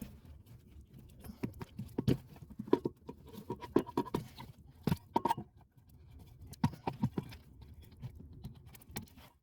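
Irregular clicks, taps and scraping from hands working with tools and wiring, with several sharper knocks about two, three, four and five seconds in and again near seven seconds.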